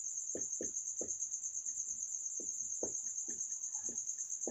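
A marker pen writing on a whiteboard, making short irregular scratching strokes a few times a second. Behind it runs a steady high-pitched pulsing trill, like a cricket's, which is the loudest sound throughout.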